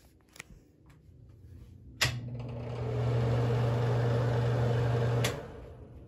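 Bathroom ceiling exhaust fan switched on with a click about two seconds in. Its motor hum and rush of air build over about a second and hold steady, then it is switched off with a click about three seconds later and dies away.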